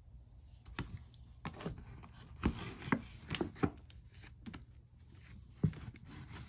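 A rigid perfume presentation box being handled: about seven irregular light knocks and taps as it is tipped over, set down and picked up again, with long nails clicking against its surface.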